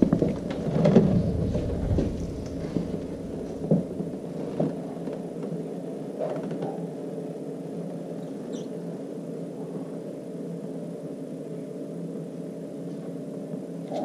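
A few knocks and clunks in the first couple of seconds as the motorcycle is stood upright to drain the last of the oil, then a couple of light clicks and a steady low hum.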